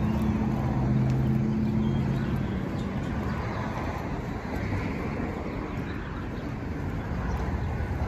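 Road traffic on a city street: a vehicle engine hums steadily for the first couple of seconds, then gives way to the even noise of passing cars, which dips and builds again near the end.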